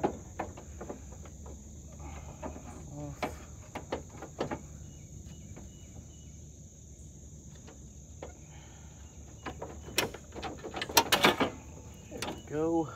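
Scattered clicks and knocks of hands and tools on plastic and metal parts in a Jeep's engine bay, with a quick run of louder clicks near the end. A steady high-pitched insect chirring runs underneath.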